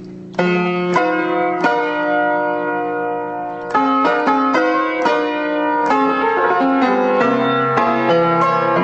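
Upright piano played by hand in a slow blues introduction. A held chord dies away, then new chords are struck about a second apart, and from about four seconds in the playing turns into a livelier run of notes over a bass line.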